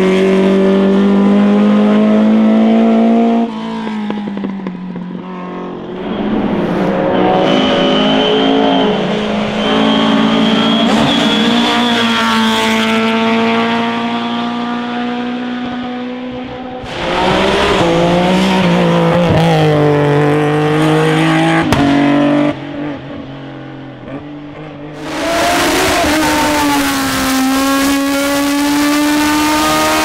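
Classic racing car engines running hard under full throttle up a hillclimb, the pitch rising and dropping as they pull through the gears. Several different cars are heard in turn, the sound changing abruptly between them several times.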